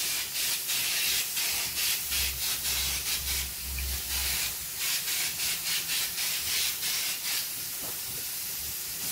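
Compressed-air spray gun hissing as it sprays alcohol-based wood stain onto a wood panel. The hiss pulses in quick, even beats, and a low hum joins for a couple of seconds in the middle.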